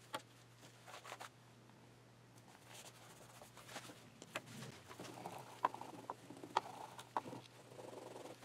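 Faint rustle and light taps of a paper pattern being pressed down by hand on a tape-wrapped board, then a hand roller rubbing over it, with a few sharp clicks scattered through.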